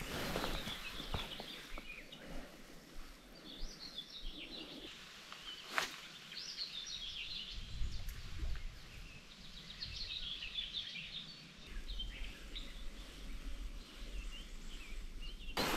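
Small songbirds chirping and singing in short bursts several times over quiet riverside ambience, with a single sharp click about six seconds in and a low rumble in the later seconds.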